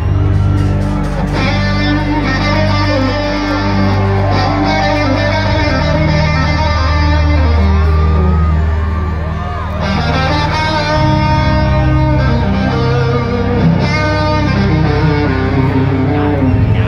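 Live band playing through a stage PA, heard from the crowd: electric guitar over keyboards and a heavy, shifting bass line.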